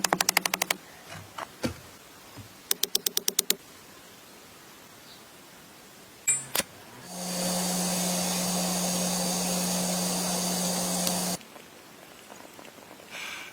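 Two quick runs of rapid sharp clicks, a single knock, then a machine running steadily with a low hum and a hiss for about four seconds before cutting off suddenly.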